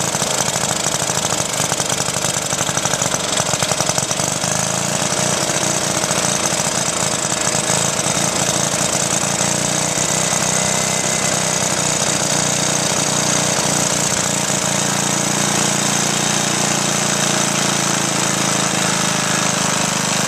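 Old cast-iron Briggs & Stratton single-cylinder four-stroke engine, fitted with a glass see-through head, running steadily with a rapid, even firing beat.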